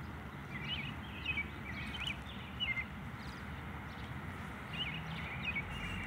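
A small songbird giving quick runs of short, high chirps, several in the first three seconds and a few more near the end, over a steady low background noise.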